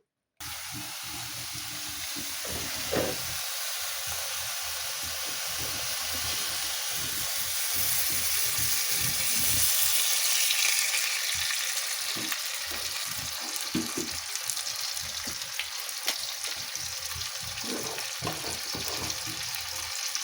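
Food sizzling as it fries in a hot pan, with irregular knocks of a spoon stirring it. The sizzle starts abruptly about half a second in and grows louder around the middle.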